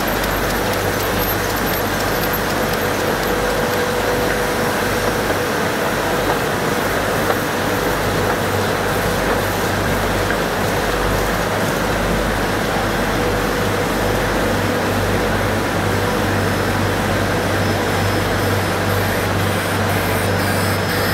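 Heidelberg Speedmaster SM74 five-colour sheetfed offset press running: a steady mechanical drone with a low hum and a faint whine, with no change in pace.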